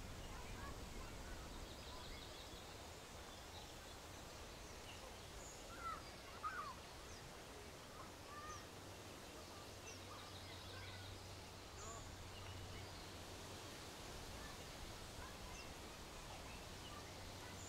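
Quiet countryside ambience: scattered short bird chirps and calls over a faint, steady background hiss. A pair of calls about six seconds in stands out as the loudest.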